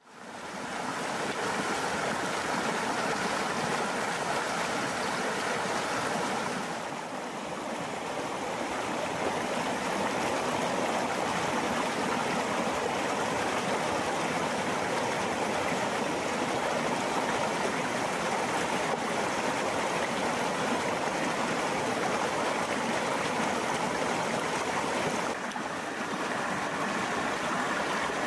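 Shallow river running over stones: a steady rush of water that fades in at the start and dips slightly twice.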